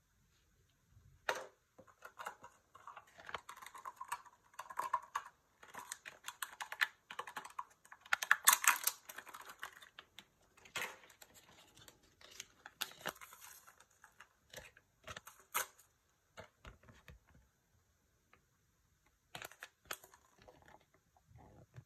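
Hands opening a Kinder Joy plastic toy capsule and its wrapping: a run of irregular small plastic clicks and crinkling, loudest about eight or nine seconds in. Near the end there are a few scattered clicks and rustles as a folded paper leaflet is opened.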